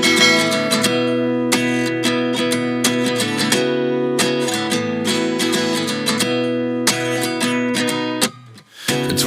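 Background music: the instrumental intro of a song, plucked strings strummed in a steady rhythm, cutting out briefly near the end.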